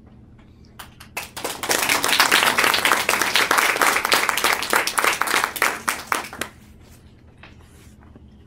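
A class of young children clapping: a few scattered claps about a second in, swelling into about five seconds of applause that then dies away.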